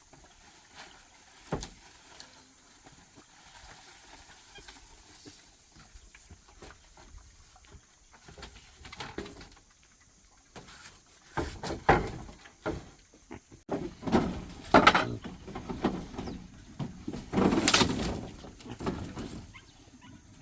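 Farm animals calling: a quiet stretch with a few faint knocks, then a run of loud livestock calls through the second half.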